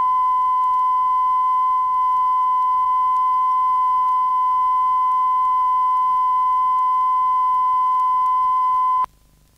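Steady 1,000 Hz test tone recorded at 100% modulation on the left channel only, played back from a calibration tape on a Sony TC-350 reel-to-reel deck; it is the check that the left speaker is wired to the left channel. The tone cuts off abruptly about nine seconds in.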